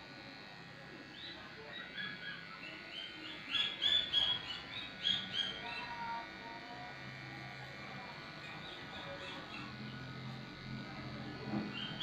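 Corded electric pet clippers running steadily while trimming a dog's coat. Over them, a run of short high chirps repeats quickly from about a second and a half in and fades out about halfway through.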